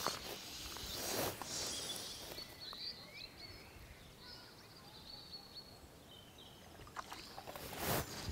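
Quiet open-air ambience with faint bird chirps in the middle, and a few soft rustling swishes near the start and again near the end.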